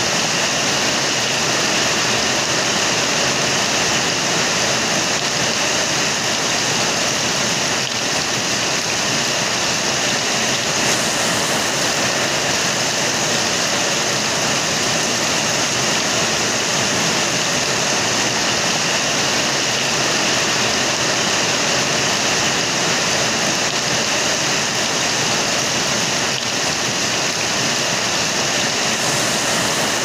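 Steady rainfall, an even hiss that holds without a break.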